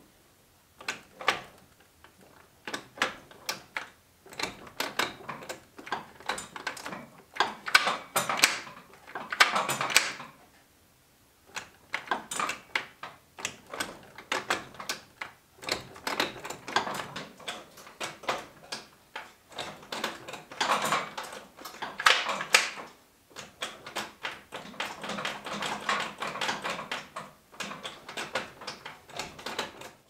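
Home-made gear shift linkage, built from car axle stabilizer rods with ball joints, being worked through the gears: a run of irregular clicks and clacks, with a few longer rubbing stretches and a short pause about eleven seconds in.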